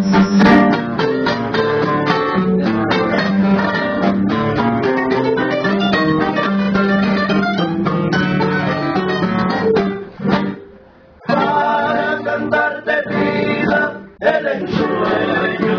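Trio of acoustic guitars playing together, picked melody over strummed chords. The playing stops for about a second around ten seconds in, then starts again, and near the end a man sings along.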